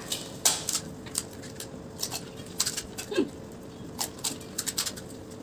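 Crisp panipuri shells being cracked open and crunched by two people eating fast: a scatter of short, sharp crackles and clicks.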